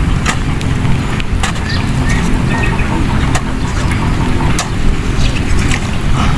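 Wind buffeting the microphone: a loud, steady low rumble, with a few sharp clicks scattered through it.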